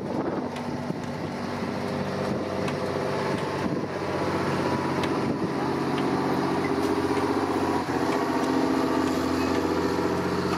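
Heavy ex-military six-wheeled truck's engine pulling hard under load as it drags a tractor-pulling weight sled. The engine note is steady and gets louder and slightly higher about halfway through.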